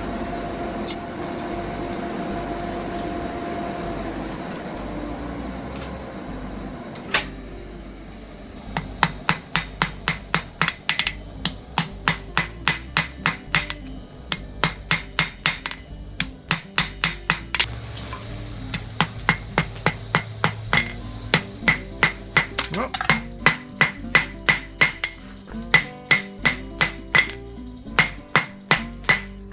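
Hand hammer striking hot steel on an anvil in fast runs of blows, about four a second with short pauses, setting a fluxless forge weld in two stacked bars. A steady hiss with a faint hum comes first, before the hammering starts.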